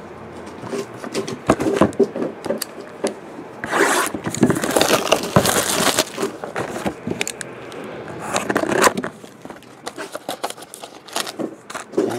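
Cardboard trading-card boxes and foil card packs being handled and moved on a table, scraping and rustling. There are many small clicks and two louder stretches, one of about two seconds near the middle and a shorter one later.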